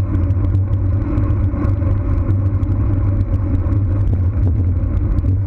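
Steady low rumble of wind buffeting the microphone and tyre-on-road noise from a camera riding along with a group of road bicycles, with faint scattered ticks.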